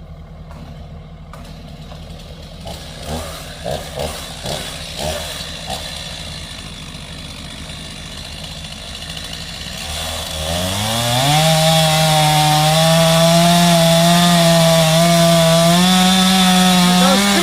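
Stihl chainsaw engine: a low steady idle with a handful of short bursts, then, about ten seconds in, it revs up and runs loud and steady at high speed, dipping briefly at the very end.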